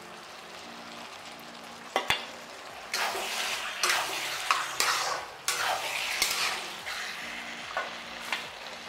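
Thick potato, pea and paneer curry sizzling softly in a kadhai. About three seconds in, a metal spatula starts stirring and scraping through the gravy against the pan, with a few sharp knocks of the spatula on the metal. The stirring eases near the end.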